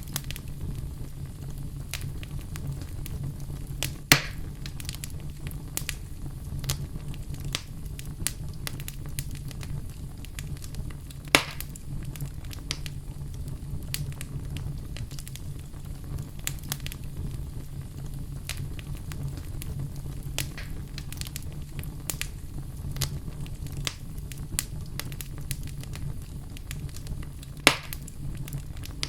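Wood fire burning in a fireplace: a steady low rumble of flame under constant irregular crackling, with three sharper, louder pops about four seconds in, past the middle, and near the end.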